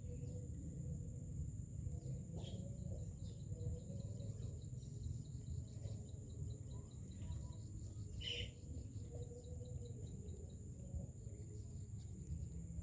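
Myna birds giving scattered short chirps and calls, one louder call about eight seconds in, over a steady low rumble and a constant high hiss.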